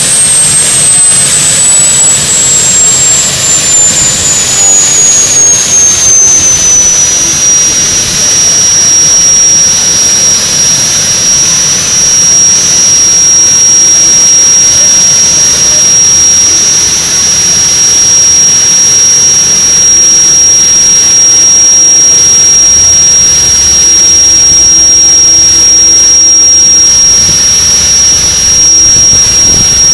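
Lycoming gas-turbine engine of a light modified pulling tractor running at full power down the track. It makes a loud high whine that drops in pitch over the first several seconds and then holds steady, over a constant rush of turbine noise.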